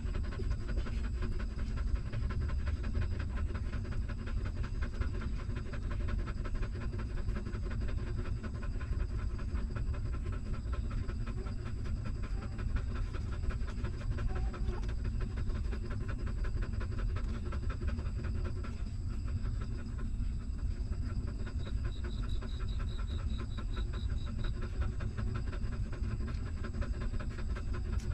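Nursing mother dog panting rapidly and steadily while her newborn puppies suckle. A faint, high, pulsing sound comes in briefly about three-quarters of the way through.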